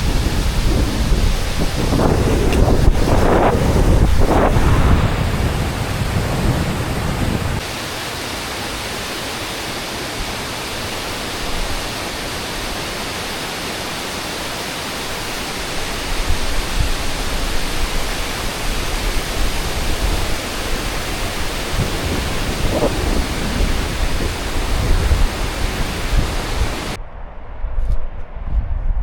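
Wind buffeting the microphone in gusts over a steady rushing hiss. The sound changes abruptly twice, steadier in the middle stretch.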